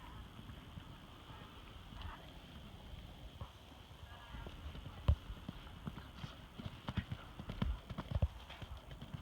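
Hoofbeats of a small pony: uneven low thuds, sparse at first, then more frequent and louder from about halfway through.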